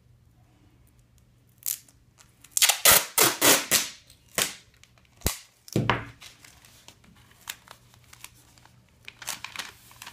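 Red building-wrap tape being pulled off its roll in a run of sharp, loud rips about two to six seconds in. Near the end come softer crinkling and rubbing as the strip is pressed onto the plastic wrap.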